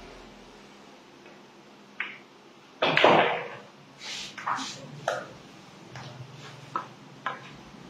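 Pool cue tip striking the cue ball, then billiard balls clacking together and knocking off the rails: a string of sharp clicks, the loudest about a second after the first, with a brief rattle after it.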